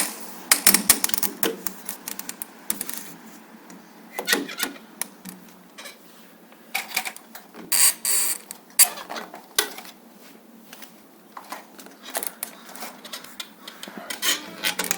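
Irregular clicks, taps and short clattering rattles of small hard objects being handled, with denser clusters about a second in, near four seconds, around eight seconds and near the end.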